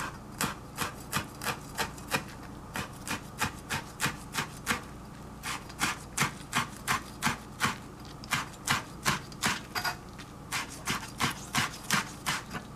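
A chef's knife slicing rolled herb leaves into thin strips on a plastic cutting board: crisp knocks of the blade on the board, about three a second, in runs of five to seven strokes with brief pauses between them.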